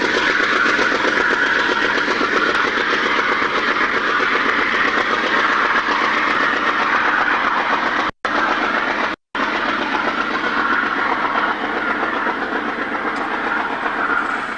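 Diesel-hauled passenger train of a GE U34CH pulling away: a steady rumble of running gear, wheels clicking over rail joints. The sound cuts out completely twice, briefly, about 8 and 9 seconds in.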